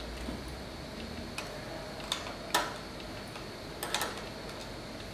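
Sharp metallic clicks of a 13mm spanner on the A-bike's front axle nut as the nut is loosened: a handful of separate clicks, the loudest about two and a half seconds in.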